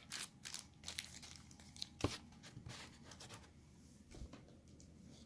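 Faint rustling and crinkling of card packaging being handled, with a few light ticks, mostly in the first two seconds and one sharper tick about two seconds in.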